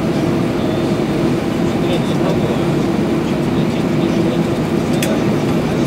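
Steady cabin noise inside an Airbus A320-214 as it taxis after landing: engines and air conditioning running with a constant low hum, and a faint click about five seconds in.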